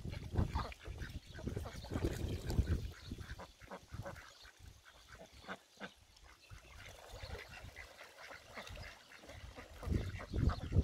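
Flock of domestic ducks quacking on and off, with occasional goose honks. Bursts of low rumble come in the first few seconds and again near the end.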